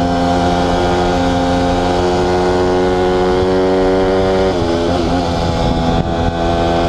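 Honda CRF150R's four-stroke single-cylinder engine running hard at steady revs while the bike is ridden. About four and a half seconds in, the engine note drops a little, wavers, then holds steady at the lower pitch.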